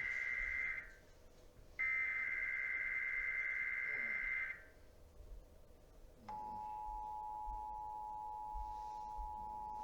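Emergency Alert System SAME header data bursts, a warbling two-tone digital screech: the tail of one burst, then a full burst of nearly three seconds. About six seconds in, the steady dual-tone EAS attention signal starts, marking the opening of a monthly test alert.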